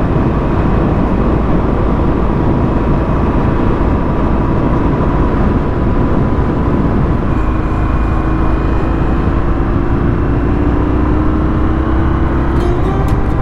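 Indian FTR-R's V-twin engine running at road speed under a heavy, steady rush of wind and road noise. Its pitch rises slowly through the second half.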